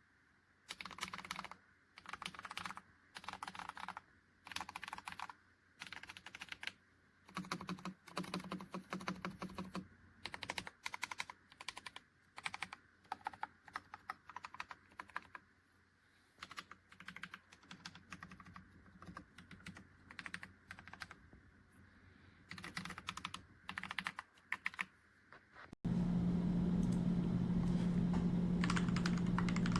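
Typing on a mechanical keyboard fitted with Akko V3 Penguin silent tactile switches: short runs of key presses with pauses between them. Near the end the typing stops abruptly and a louder steady hum with a low tone takes over.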